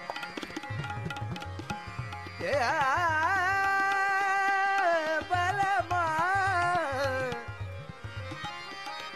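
Indian classical-style background music: a tabla beat with a singer holding long, wavering, ornamented notes from about two and a half seconds in until about seven seconds, after which the drums and accompaniment carry on alone.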